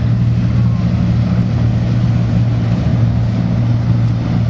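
Racing lobster boats running flat out, a loud, steady engine drone with no change in pitch.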